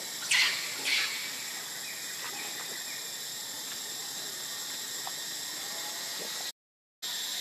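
Two short, high-pitched squeals from a baby macaque about half a second apart near the start, over a steady insect hiss. The sound cuts out for about half a second near the end.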